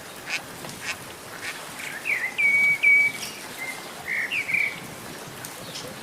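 Birds calling: a run of short whistled notes, each rising then held, from about two seconds in to about five, with scattered brief chirps, over a steady hiss of water.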